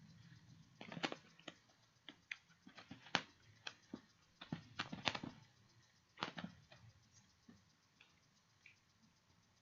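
Faint, irregular clicks and taps, about a dozen of them, thickest between about one and five seconds in, then thinning out.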